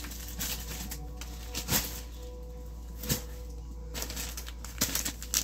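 Scattered soft rustles and a few short taps of items being handled, likely packaged curtain panels being pulled out, over a faint steady tone.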